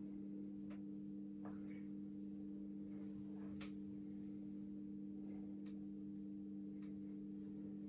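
A steady low hum of a few held tones, with a few faint soft ticks.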